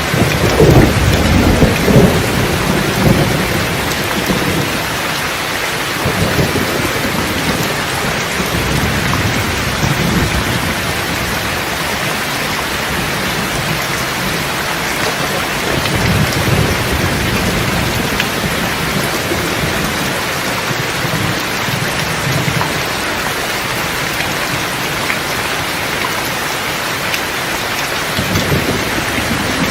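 Steady heavy rainfall with rolling thunder: a low rumble swells in the first few seconds, again about halfway through and near the end, under the constant hiss of the rain.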